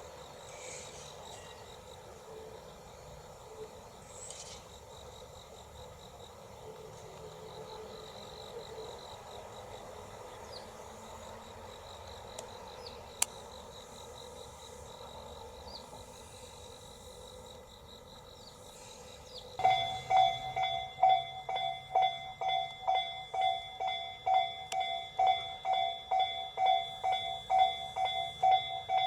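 Faint outdoor background with insects chirping, then about two-thirds of the way through a railway level-crossing warning bell starts ringing, a loud repeating ding about two or three times a second.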